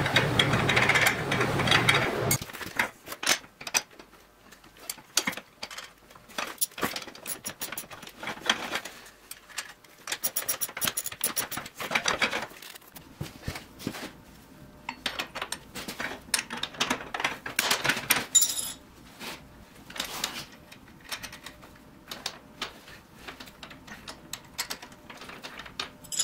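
Steel linkage rods, bolts and hand tools clinking and knocking in irregular short clicks as a shifter linkage is fitted and bolted together. For the first two seconds a steady noisy hiss runs, then stops.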